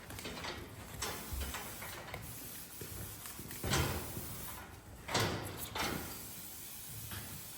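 A few knocks and scrapes, with two louder bangs about three and a half and five seconds in.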